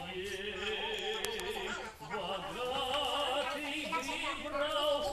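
A man singing in an operatic style with a wide vibrato over musical accompaniment, in two long phrases with a short break about two seconds in.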